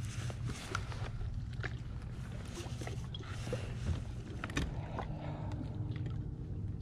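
Bass boat sitting on the water: a steady low rumble with scattered light clicks and knocks, and a faint whine from the bow-mounted electric trolling motor coming in about five seconds in.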